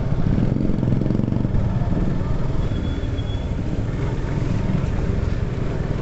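Motorcycle engine running steadily as the bike is ridden, heard from the rider's seat as a continuous low rumble mixed with road noise.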